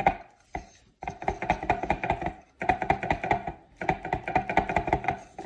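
Arnott AS 3381 rear air suspension strut for a Tesla Model S being shaken by hand, rattling with rapid clicks in three bursts separated by short pauses. The rattle comes from a loose part in the upper end of the strut, a defect in a unit less than a year old.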